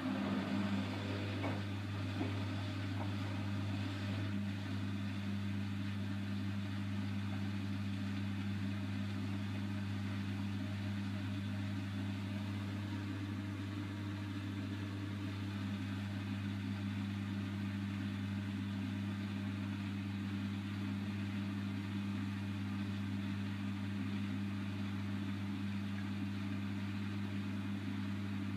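Bosch WAY32742 front-loading washing machine spinning its drum at speed during a rinse spin, a steady, even motor hum and whirr with no change in pitch.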